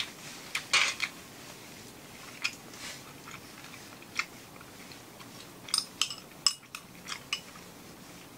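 Eating with chopsticks from a ceramic bowl: scattered sharp clicks of chopsticks against the bowl and pot, mixed with chewing.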